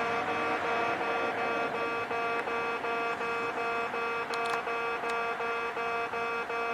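Railway level crossing warning buzzer inside a station, sounding a steady pitched tone that pulses in a quick, even rhythm. This is the crossing's current buzzer tone, which replaced an older trumpet-like one. A few faint clicks come about four seconds in.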